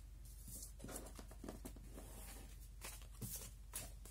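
Faint rustling and sliding of handwritten paper cards as hands gather them up off a tabletop, with a few soft taps.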